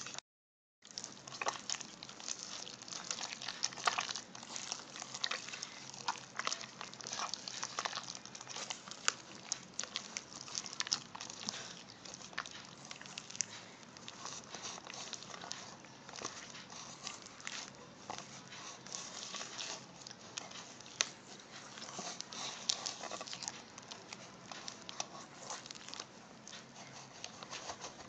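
A hand squeezing and stirring thick chocolate cake dough into milk in a metal bowl, giving a continuous run of wet squelches and small slaps. It starts after a brief silence.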